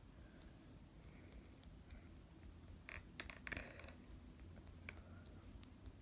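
Near silence: room tone with a low hum and a few faint, irregular scratches and clicks, clustered about three seconds in.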